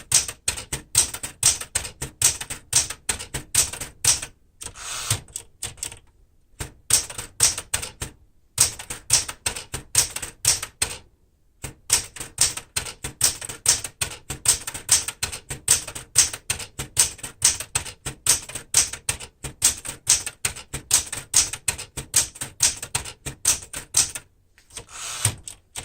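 1973 Smith-Corona Galaxie Twelve manual typewriter typing a key test: a quick steady run of type-bar strikes, about four or five a second, broken by a few short pauses. The serviced machine's keys hit properly.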